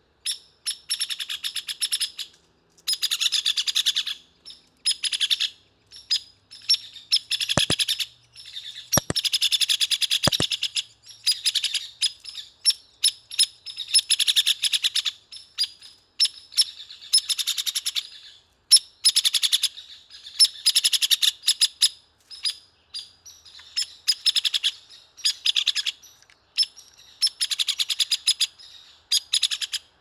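Hairy woodpecker calling: runs of rapid rattling whinny notes, each lasting a second or two and coming every few seconds, with short single sharp calls between them.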